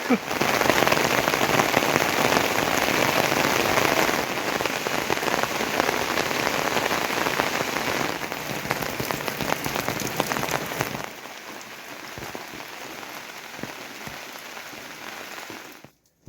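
Steady rain falling and pattering on surfaces. About eleven seconds in, it drops to a softer rain, and it cuts off shortly before the end.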